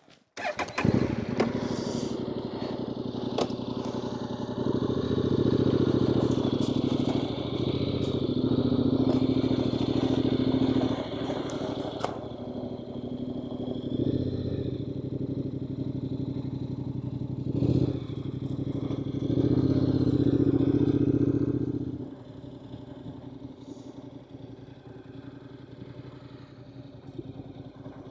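Honda NC750X DCT motorcycle's 745 cc parallel-twin engine running as the bike pulls away and rides off. It is louder in two stretches, from about five to eleven seconds in and again around twenty seconds in, then drops and goes on quieter as the bike gets further away.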